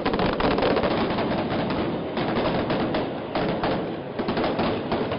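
A dense, irregular crackle of many sharp clicks, like rapid gunfire, fading a little near the end.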